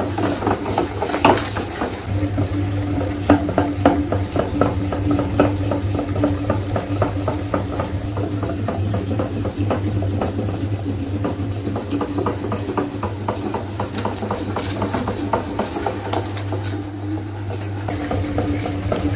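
Meat grinder running with a steady hum, with many small clicks and crunches as sweets are forced through it.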